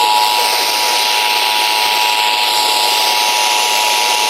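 Emergency Alert System two-tone attention signal, about 853 and 960 Hz sounding together, held steady over a hiss of radio static.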